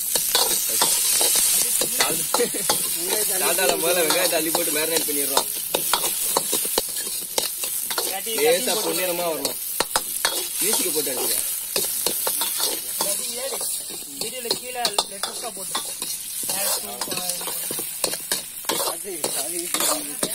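Sliced onions sizzling in hot oil in an iron wok, a steel ladle stirring them and scraping and clinking against the pan again and again.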